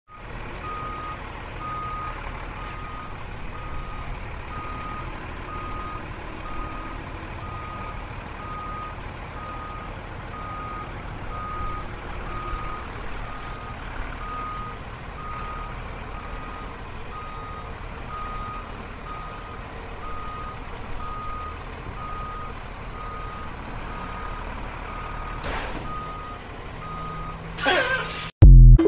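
Scale-model Volvo semi truck backing up: a reversing alarm beeping steadily about twice a second over a low engine rumble. A brief loud burst cuts in near the end.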